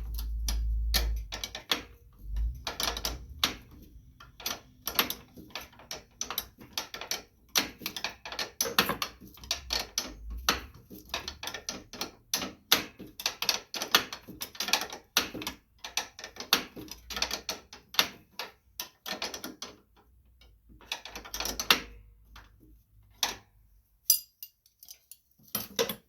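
A ratchet wrench clicking in repeated short runs of quick strokes as the nuts holding the steering rod on a riding mower's steering gear are undone.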